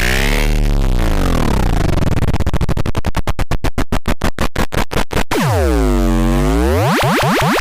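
Digitally processed electronic sound: a buzzy tone with many overtones swoops down in pitch and back up. About two and a half seconds in it turns into rapid stuttering chops that speed up for nearly three seconds. It then ends in a deep pitch swoop down and back up.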